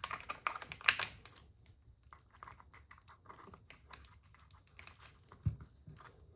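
Light clicking and rattling of small RC car parts being handled and test-fitted, busiest in the first second and a half, with one louder knock about five and a half seconds in.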